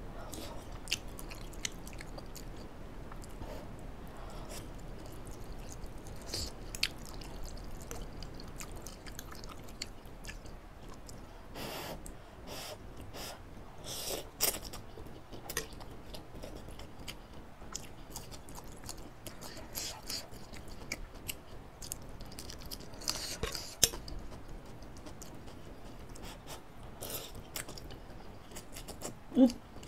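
Close-miked chewing and slurping of instant noodles in spicy laksa broth: a steady run of wet mouth clicks and smacks, with a few louder slurps as forkfuls of noodles are sucked in, around the middle and about three-quarters through.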